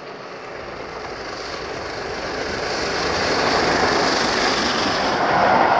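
LNER Peppercorn A1 class three-cylinder Pacific steam locomotive 60163 Tornado and its train approaching at speed. A steady rushing noise grows louder throughout as the engine draws level.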